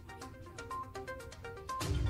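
Background news music of short, evenly repeated notes; the deep bass drops back and returns with a strong hit near the end.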